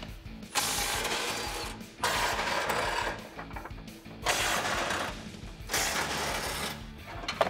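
Cordless impact wrench with a 21 mm socket hammering in four bursts of about a second each, loosening the nuts that hold a factory front bumper.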